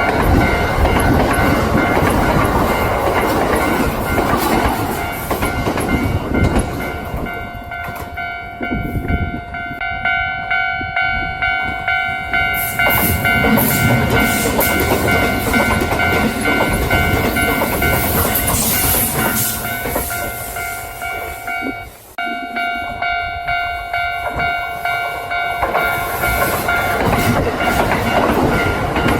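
Kintetsu electric train passing, its wheels clattering over the rail joints in a steady clickety-clack, with steady ringing tones over the noise.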